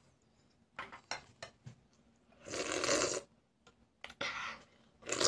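A small child eating rice and soup at the table: a few short clicks, then noisy slurping, the longest lasting most of a second in the middle, with two shorter ones near the end.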